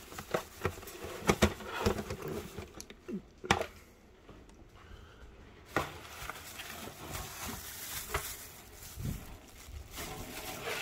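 Irregular clicks, taps and light knocks of handling as a disposable aluminium foil baking pan and the phone filming it are moved about. The sharpest knocks come about a second and a half in and again at three and a half seconds.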